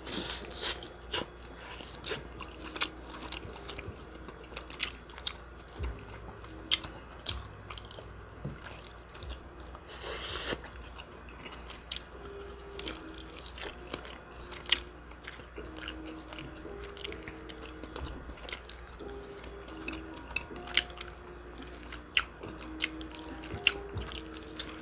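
Close-miked chewing and biting of deep-fried chicken wings: many small, sharp crunches and mouth clicks, with one louder crackly crunch about ten seconds in. Quiet background music plays underneath.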